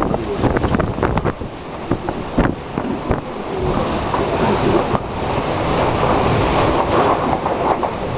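Typhoon wind and rain, gusting hard and buffeting the microphone; the loud roar swells and eases, with many short sharp crackles of wind and rain striking the mic.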